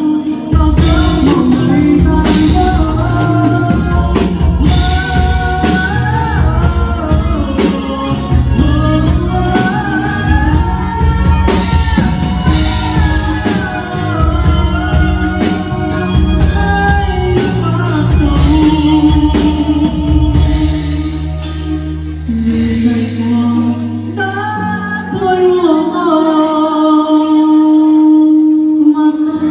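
Pop ballad music: a band backing with a steady beat and a gliding melodic lead line, the lead heard as singing.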